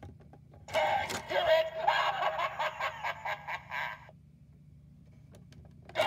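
Gemmy animated Cursed Coffin doorbell prop set off by its button: a click, then its recorded spooky voice effect plays through the toy's small speaker for about three seconds as the skeleton pops out. After a short pause a second burst begins near the end.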